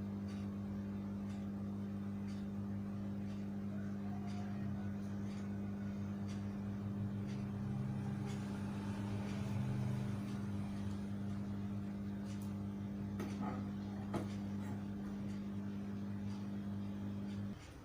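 A steady low electrical hum with light clicks scattered through it; the hum cuts off suddenly near the end.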